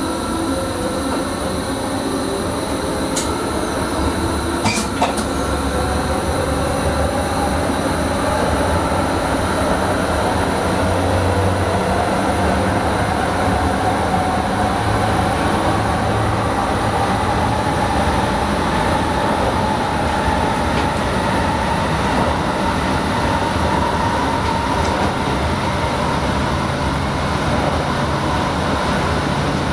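Sprinter electric multiple unit running on the line, heard from the driver's cab: steady rumble of wheels on the rails with an electric motor whine that rises in pitch as the train picks up speed, then holds. Two short clicks sound a few seconds in.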